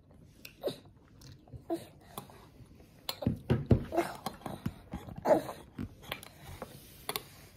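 A toddler eating: a metal fork and spoon clicking and scraping against a bowl, with chewing and small mouth sounds and a few brief vocal noises. The clicks come thickest from about three seconds in.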